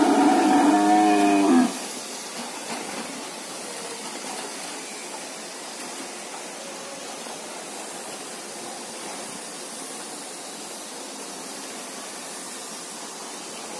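Animatronic Triceratops playing a loud recorded roar through its speaker, cutting off suddenly about two seconds in. After that only a steady hiss remains.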